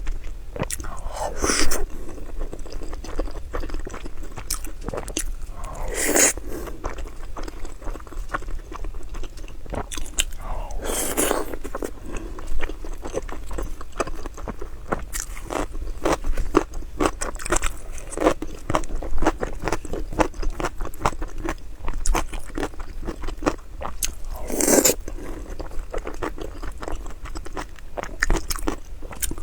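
Close-miked chewing and biting of food: a steady run of small, crisp clicks, with a handful of louder, longer sounds every few seconds.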